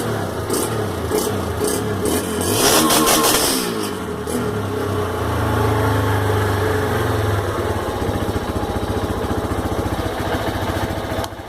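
Honda CG 150 Fan single-cylinder four-stroke engine running through a Roncar aftermarket exhaust. It gives a short blip of throttle about three seconds in, then settles back to an even, pulsing idle.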